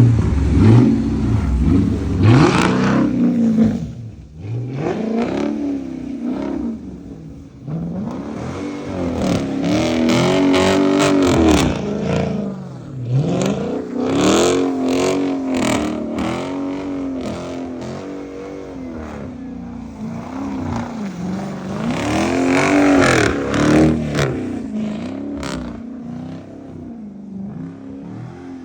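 Car engine revving up and down again and again, its pitch rising and falling every second or two, as the car is slid around in snow.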